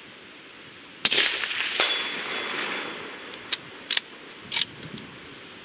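A suppressed Remington 700 bolt-action rifle in .308 Winchester fires one shot about a second in, with a long decaying tail and a second crack under a second later. A few sharp metallic clicks follow as the bolt is worked, over a steady hiss of rain.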